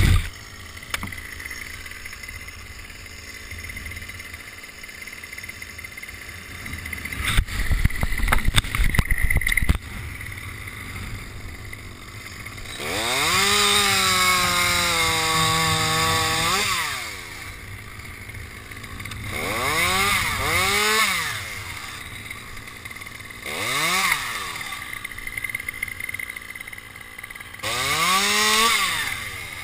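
Chainsaw cutting through pine limbs: revved up and held for a cut of about four seconds, then three shorter bursts of revving, idling in between. A cluster of loud knocks comes earlier on.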